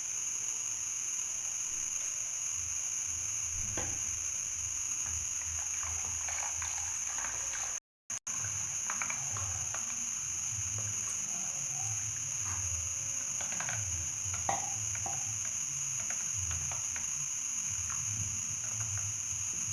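Light kitchen handling sounds: scattered small clinks and knocks of utensils and containers, with some liquid, over a steady hiss. The sound drops out briefly about eight seconds in.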